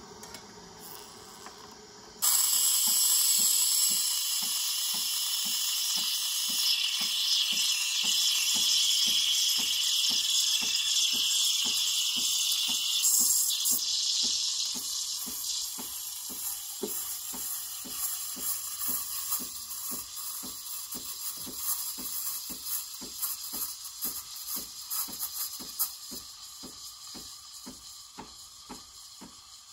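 Breville Barista Express steam wand hissing into a jug of milk, switching on suddenly about two seconds in, with the machine's pump pulsing underneath at a little over two ticks a second. The hiss is loudest at first, while air is drawn into the milk, then eases about halfway through as the milk is rolled and textured, and it slowly fades toward the end.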